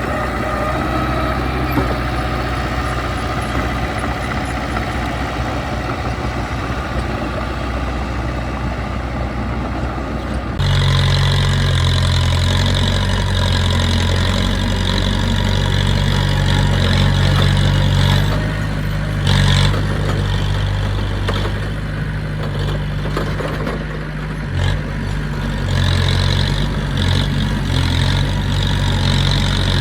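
Diesel engine of heavy earthmoving equipment running, working under varying load. About a third of the way in the sound switches abruptly to a louder, deeper engine note.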